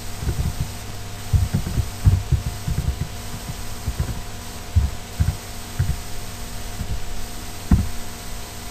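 Irregular dull thuds of computer keyboard keys being typed, heard as low knocks over a steady electrical hum, with one louder knock near the end.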